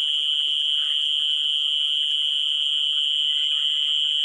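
A steady, unbroken high-pitched whine, holding one pitch with fainter higher tones above it.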